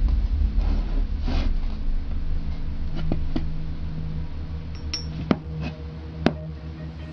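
A few sharp metallic clicks and clinks as a small block magnet is handled against a thick-walled copper cylinder, over a steady low hum.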